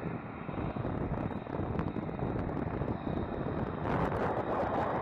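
Jet engines of F-35B Lightning II fighters taxiing: a steady rushing engine noise that gets louder about four seconds in.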